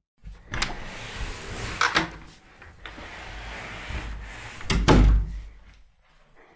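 A room door and someone moving about: a few knocks and rustles, then a heavy thump about five seconds in.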